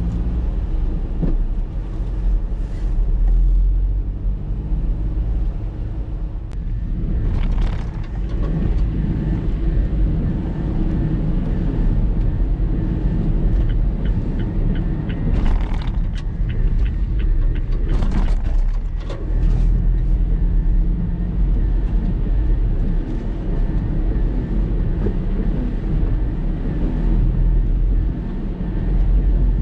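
Typhoon wind buffeting the microphone: a continuous heavy rumble that swells and eases with the gusts, with a few brief louder rushes of noise.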